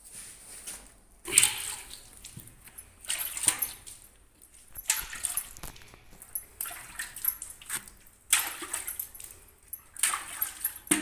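Cow being milked by hand, milk squirting into a container in hissing spurts that come in bouts every one and a half to two seconds.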